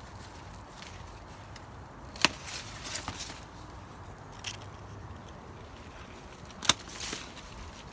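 Hand pruning shears snipping through loquat side branches: two sharp snips about four seconds apart, each followed by the rustle of leaves, with a few lighter clicks between.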